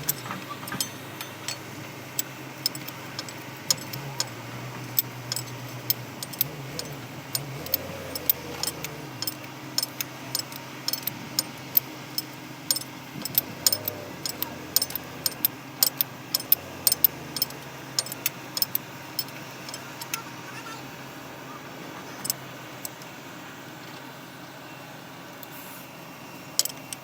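Irregular sharp metallic clicks and clinks of hand tools being worked on engine parts, thinning out after about 20 seconds, over a steady low machinery hum.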